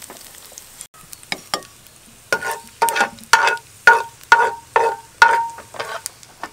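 Metal slotted spatula knocking and scraping against metal, about two strokes a second, each with a short ring. Two lighter clicks come first.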